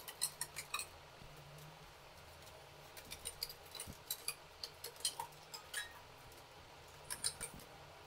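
Scissors snipping through wire mesh: runs of short, sharp metallic snips, a quick cluster at the start, a pause of about two seconds, then a longer run and a last few snips near the end.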